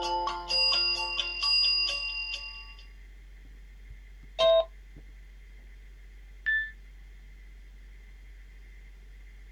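Nokia 6220 Classic mobile phone playing its alarm tones through its loudspeaker. The "Clock alert 1" tone ends in a quick run of bright electronic notes that fades out about two and a half seconds in. Then comes a single loud chime about halfway through, and a short high beep a couple of seconds later.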